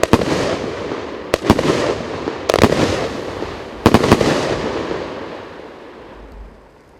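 Consumer firework cake with 30 mm tubes firing its last shots. Sharp bangs, several in close pairs, come about every second or so, each followed by a lingering noisy rush. The sound dies away about six seconds in.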